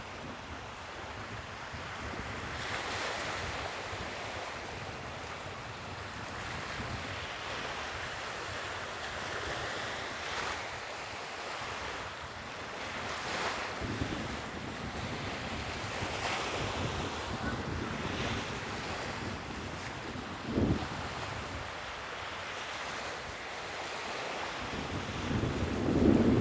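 Sea waves washing in and out, the surf swelling every few seconds, with wind buffeting the microphone; the wind rumble grows stronger near the end.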